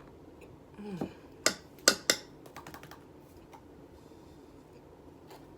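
Cornstarch being bitten and crunched: three sharp, loud crunches about one and a half to two seconds in, then a few lighter crackles, after a short falling hum.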